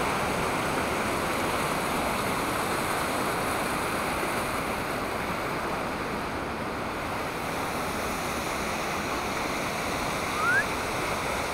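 River waterfall rushing steadily, with one short rising chirp near the end.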